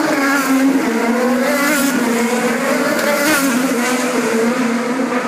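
Indy car race engines running loud at a street circuit, the engine note rising and dipping as the cars accelerate, shift and pass.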